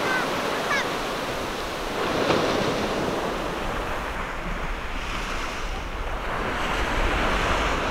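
Surf washing up a beach, swelling about two seconds in and again near the end, with wind rumbling on the microphone.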